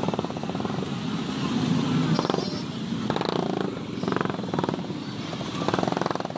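Many motorcycle engines running at low speed in a dense procession, with the voices of a crowd of riders shouting and talking over them.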